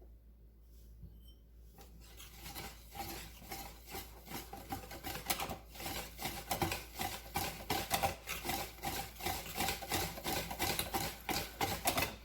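Pancake batter being mixed by hand in a bowl: fast, even rasping strokes of the utensil against the bowl, starting about two seconds in. The batter is thick with flour, close to a cake batter.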